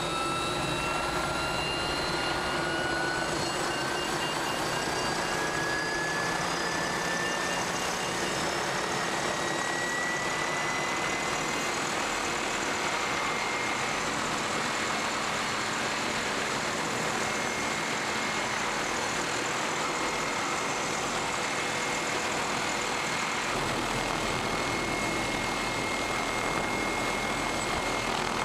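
Turbine tour helicopter heard from inside the doorless cabin, spooling up on the pad: a whine rising slowly in pitch for about the first ten seconds, then holding steady over a steady rushing noise. A low rumble joins about five seconds before the end.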